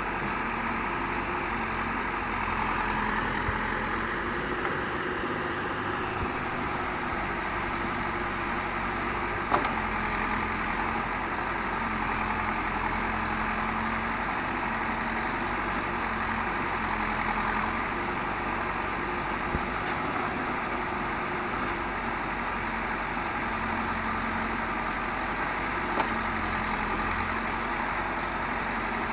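Diesel engine of a Terex TLB 740S backhoe loader running steadily while it digs and loads soil, its note rising and falling slightly with the work. A sharp knock comes about nine and a half seconds in and a smaller one near the end.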